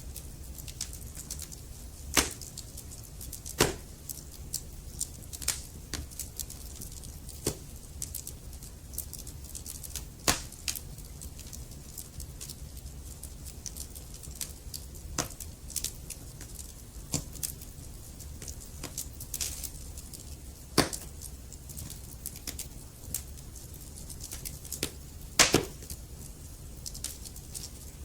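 Wood fire crackling: irregular sharp pops and snaps from burning logs over a steady low rumble, with a handful of louder pops standing out, the loudest about 25 seconds in.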